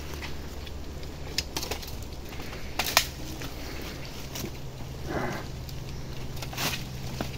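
Twigs snapping and dry leaves crackling and rustling as someone pushes on foot through dense undergrowth, in scattered sharp snaps with a longer rustle about five seconds in, over a low steady hum.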